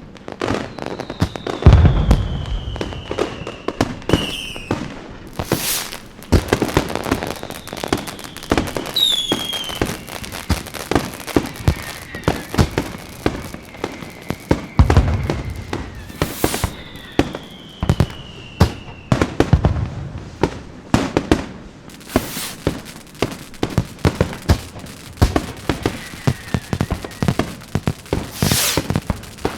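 Fireworks going off: dense crackling and popping, several deep booms, and whistles that glide down in pitch. The loudest boom comes about two seconds in.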